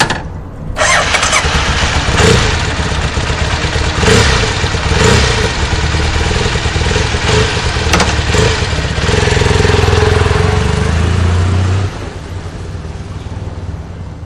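Honda Tornado 250 single-cylinder motorcycle engine running loudly, under a broad rushing noise that eases about twelve seconds in.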